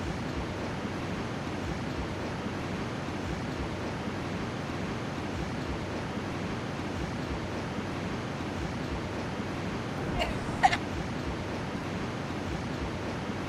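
Steady rushing noise with no swells, and one brief sharp sound about ten and a half seconds in.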